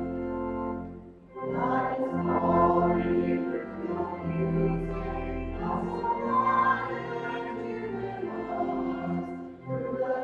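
A choir singing with sustained accompaniment, in held phrases. One phrase ends about a second in and the next begins, with another short break near the end.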